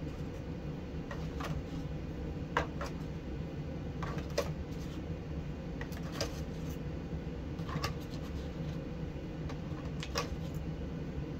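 Scattered light clicks and knocks of kitchen items being handled, over a steady low hum.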